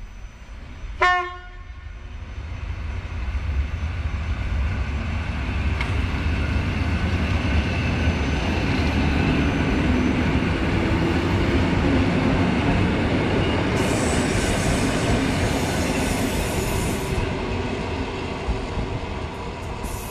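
An EN57 electric multiple unit sounds one short horn blast about a second in, then rolls along the platform, its wheel and running noise swelling to a peak midway and easing off toward the end. A high hiss comes in about two-thirds of the way through.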